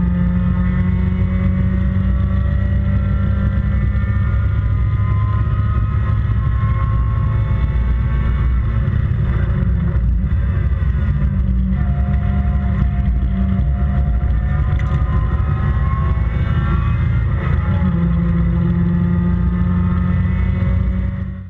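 Toyota 4AGE 1600cc twin-cam four-cylinder engine of an MG Midget race car driven hard on track, heard from inside the open cockpit, its pitch rising and falling as the driver works through the revs and gears. The sound cuts off suddenly near the end.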